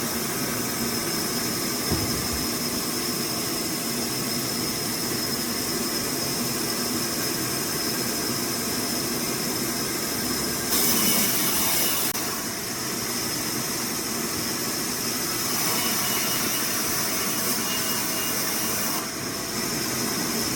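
Sawmill machinery running steadily with a constant high whine, and a louder burst of hiss for about a second near the middle.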